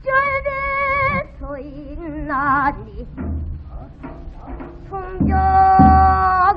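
A female pansori singer singing on an old record, with long held notes and wide vibrato between shorter phrases. A barrel drum (buk) strikes a few low beats in the second half.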